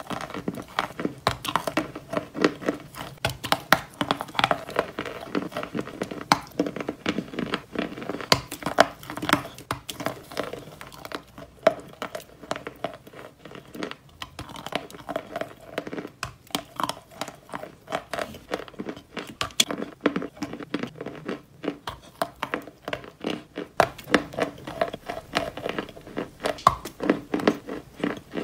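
Close-miked crunching and crackling as a person bites and chews a dry, crumbly block of chalk coated in orange chalk powder. It is a dense run of sharp crunches, a little sparser near the middle.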